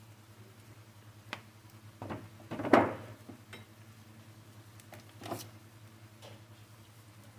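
A few scattered knocks and clatters of objects being handled, the loudest about three seconds in, over a steady low hum.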